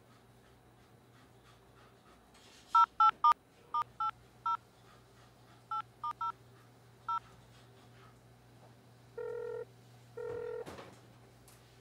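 A phone number being keyed in on a telephone keypad: about ten short two-note beeps in quick, uneven groups. After a pause, the line starts ringing, with two short ringing tones near the end.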